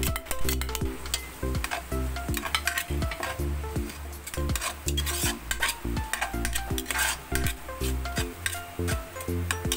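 Food sautéing in a pan: a utensil stirring and scraping with repeated clicks over a steady sizzle. Background music with a steady bass line runs underneath.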